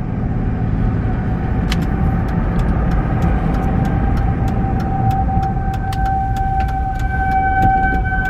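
Road rumble inside a moving car. A steady high tone, faint at first, grows clearly louder from a little over halfway in, with a few scattered clicks.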